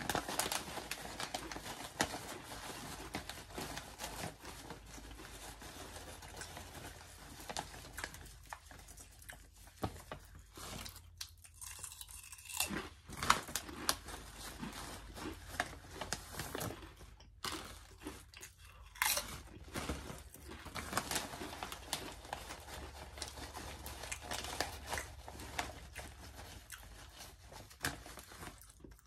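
A person chewing crunchy wavy potato chips, with irregular crisp crunches and a few sharper cracks along the way.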